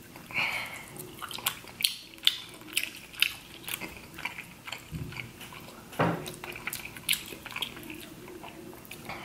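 Eating king crab legs by hand: crab shell cracking and meat being pulled from it, with chewing and wet mouth sounds. Sharp, irregular clicks come several times a second, with a brief hum about six seconds in.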